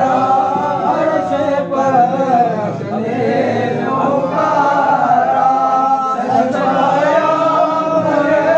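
A group of men chanting together in unison, with long held, wavering notes.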